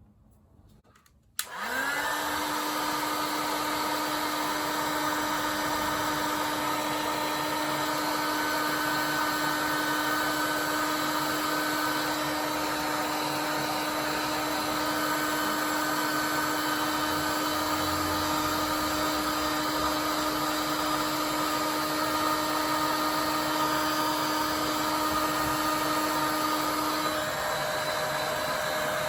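Heat gun switched on about a second and a half in, its fan motor spinning up and then blowing steadily to shrink heat-shrink tubing over a cable joint. The motor's hum changes pitch near the end.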